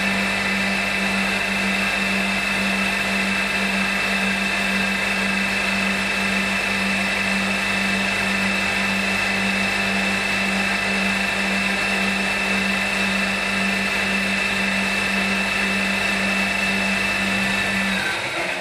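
Small CNC milling machine's spindle running steadily, a loud hum with a high whine, while a small cutter machines a cable connector held in a collet. Near the end the low hum drops out as the cutter lifts clear and the sound begins to die away.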